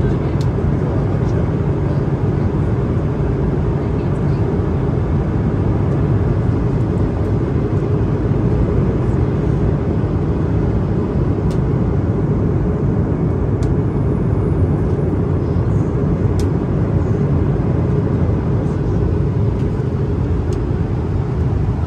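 Steady cabin noise inside an Airbus A220-300 airliner in flight: a constant low rush of airflow and engine noise that does not rise or fall.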